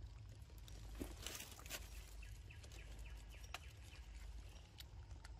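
Macaque gnawing and chewing on a whole mango: faint, scattered soft clicks and ticks over quiet forest ambience.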